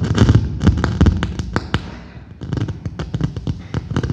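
A rapid, irregular string of sharp cracks and pops, densest in the first two seconds, easing briefly, then picking up again near the end.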